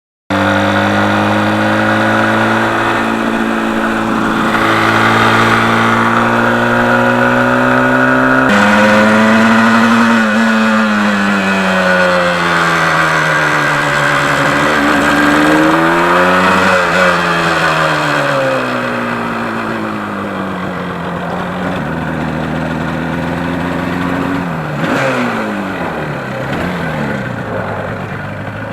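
1977 Yamaha RD400's two-stroke twin engine running under way, its pitch rising and falling again and again as the throttle opens and closes, with an abrupt change about eight seconds in.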